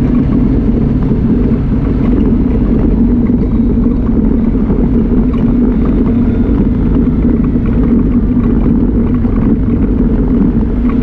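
Off-road vehicle's engine running steadily under load while driving on a gravel road: a loud, even drone that holds its pitch throughout.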